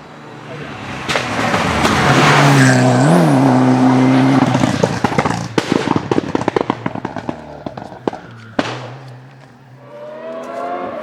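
Racing car passing at full throttle on a hillclimb road: the engine note climbs to a loud peak with a short blip about three seconds in, then a rapid string of cracks and pops from the exhaust for a few seconds, with one sharp bang near the end of it. Near the end, an engine note rises again.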